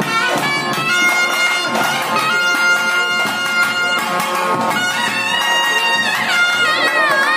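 Nagaswaram, the long double-reed pipe, playing a loud ornamented melody of long held notes with gliding, wavering pitch bends over a steady drone.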